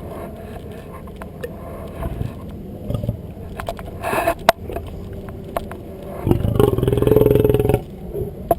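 Male lion giving a low, pulsing growl for about a second and a half near the end, with scattered smacking clicks before it as he licks ice cream off a stick.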